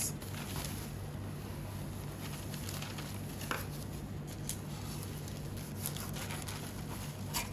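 Faint rustling of baking paper and plastic disposable gloves as the paper is smoothed by hand: a few soft crinkles over a steady low hum.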